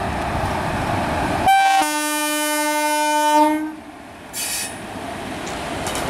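WAP-4 electric locomotive sounding its horn: a brief high note, then a longer blast of about two seconds. Both are heard over the running noise of the passing express train's wheels on the rails.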